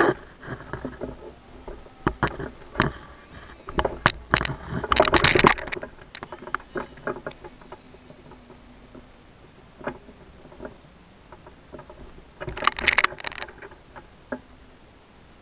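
Close-up handling noise on a body-worn action camera: clothing and tactical gear rubbing and knocking against the camera as it is moved and repositioned. It comes in crackling, scraping bursts, the loudest about four to five and a half seconds in and another near the end, with scattered single clicks between.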